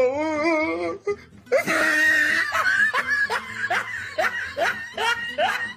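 Loud laughter: a drawn-out wavering laugh, then a long run of short laughs about two a second, each falling in pitch.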